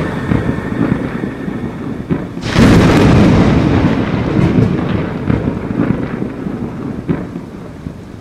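Thunder rumbling, with a sudden loud clap about two and a half seconds in that rolls off and fades slowly.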